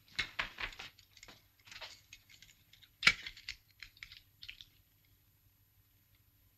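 A run of small clicks and rustles for about four and a half seconds, with one sharper click about three seconds in: hands fastening the fittings of a metal helmet apparatus.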